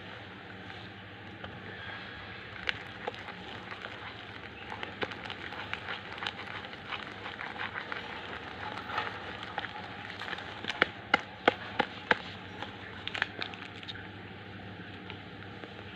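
Fluffy slime mixture being stirred by hand: a stream of small sticky clicks and crackles, with a run of louder sharp clicks a little after the middle.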